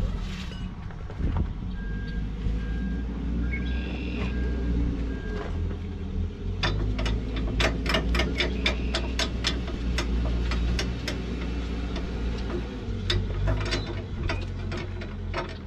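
A diesel engine idling steadily, with a back-up alarm beeping several times in the first few seconds. From about six seconds in comes a run of rapid, evenly spaced ratchet clicks, about four a second, as a cargo strap is wound up, with a few more clicks near the end.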